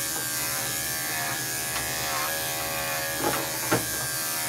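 Electric dog grooming clipper with a guard running with a steady buzz as it is drawn through a dog's fine coat. Two short sharp sounds break in a little over three seconds in.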